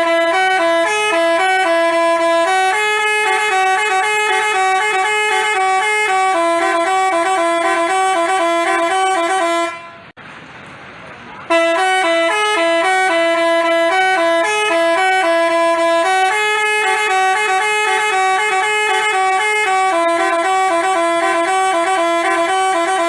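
Telolet basuri multi-tone bus horn playing a tune of held, stepping notes. It breaks off about ten seconds in and, after a short pause, plays the same tune again.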